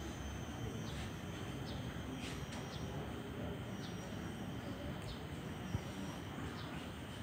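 Outdoor background ambience: a steady low rumble with short, high, downward-sweeping bird chirps about once or twice a second and a faint steady high whine. No singing or music.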